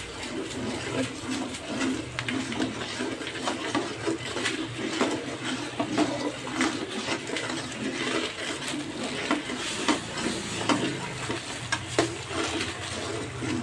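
Yellow spice mixture bubbling and frying in a wok while a metal spatula stirs it, with frequent short clicks and scrapes of the spatula against the pan.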